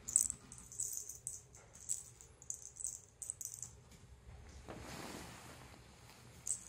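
Light, irregular jingling rattles in quick clusters for several seconds, with a soft rushing sound about five seconds in.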